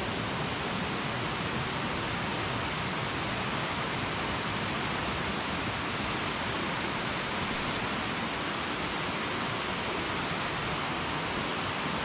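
Steady rushing of a mountain stream and its cascades: an even hiss of water.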